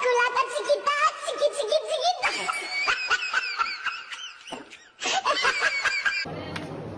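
Loud, high-pitched laughter in rapid pulsing bursts. It breaks off about four and a half seconds in, comes back briefly, then cuts off abruptly a little after six seconds.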